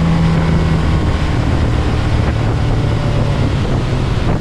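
Yamaha 150 outboard motor running at high speed, pushing a small houseboat on plane, with wind and water rushing past. The engine note shifts about a second in.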